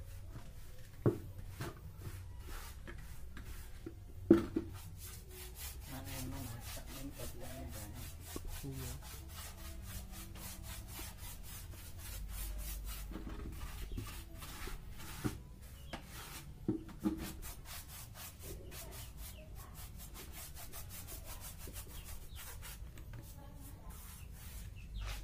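Rubbing and scraping on a wooden speaker box, with a few sharp knocks, the loudest about four seconds in.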